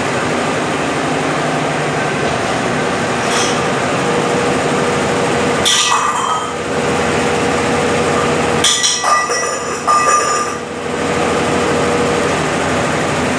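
Brastemp BWL11 11 kg washing machine running its spin cycle with a load of rugs: a steady hum with a faint whine, broken twice by clattering metallic rattles, about six seconds in and again around nine to ten seconds.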